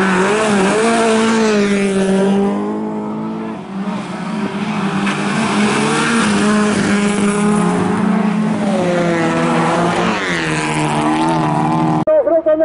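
Several bilcross race cars' engines running hard at race pace, their pitches climbing and dropping as they accelerate and lift; the sound cuts off abruptly near the end.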